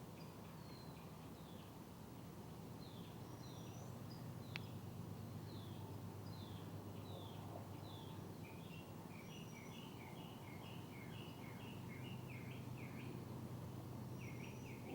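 Faint bird chirps: short falling notes, scattered at first, then coming quickly in a run about two-thirds of the way through. A low steady hum lies underneath.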